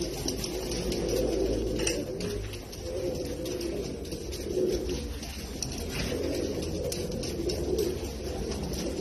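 Fancy pigeon bow-cooing in a courtship display: repeated low, rolling coos one after another.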